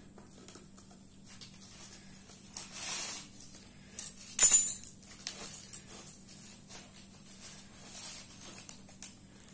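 Handling noise from untying thread around a small dung-caked clay pot: scattered light scrapes, rustles and clicks, with one louder sharp knock about four and a half seconds in.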